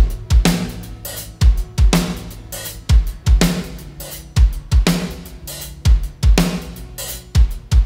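Band music with a drum kit driving a steady beat: deep kick-drum thumps, snare hits and hi-hat, over sustained low bass notes.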